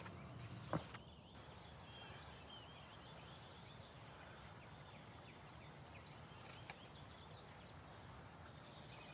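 Near silence: faint outdoor ambience with a few soft bird chirps. There is a single knock about a second in.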